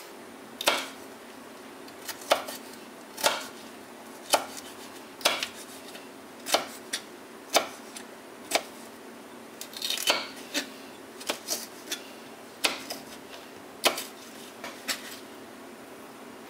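Kitchen knife chopping red bell pepper on a cutting board: single sharp knocks of the blade against the board, roughly one a second, with a quicker run of cuts about ten seconds in.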